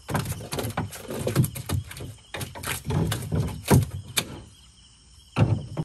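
A fish flapping and slapping in the shallow water on a boat's floor while a blade is struck at it: a fast, irregular run of knocks and splashes. It stops about four seconds in, and one more knock comes near the end.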